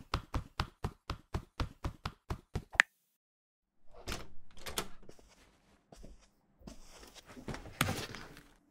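A fast run of about fourteen short cartoon tap sound effects, about five a second, ending in one louder tap. After a second of silence come soft scattered rustles and knocks of a phone being handled and picked up off a wooden desk.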